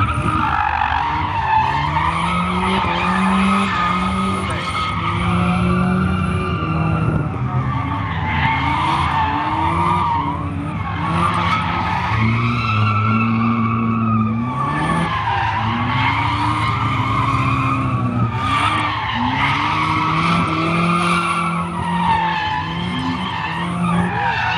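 Toyota MR2 drifting: the engine revs up and down again and again while the tyres squeal in long, wavering screeches, with only brief breaks.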